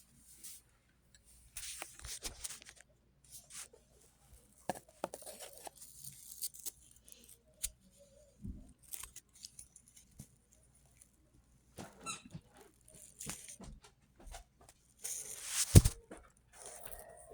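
Scattered plastic clicks, knocks and rustles of a vacuum's dusting-brush attachment being handled and fitted onto the hose, with a louder knock near the end; no motor is running.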